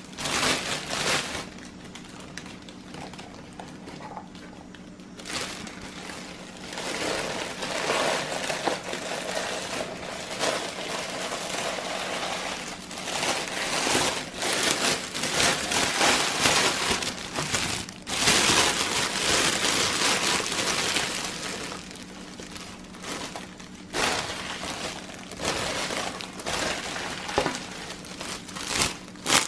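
Clear cellophane film crinkling in irregular bursts as it is unfolded and gathered up by hand around a box.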